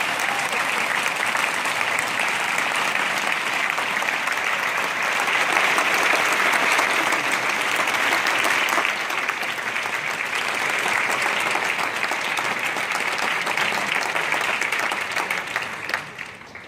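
Concert audience applauding, a dense patter of many hands clapping that swells slightly midway and dies away near the end.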